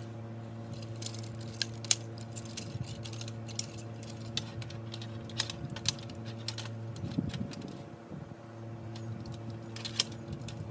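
Irregular light metallic clicks and clinks of blind frame parts and hardware being handled, over a steady low hum.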